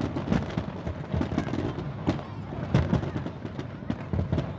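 Fireworks going off: a rapid, irregular series of sharp bangs and cracks, several a second.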